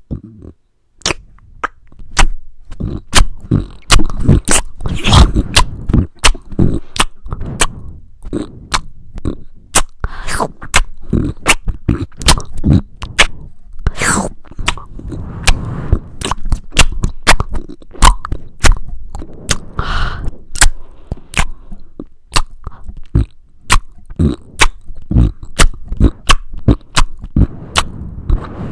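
Close-miked chewing: wet lip-smacking and mouth clicks, several a second, from a man eating soft food off a spoon, with a few grunting vocal sounds mixed in.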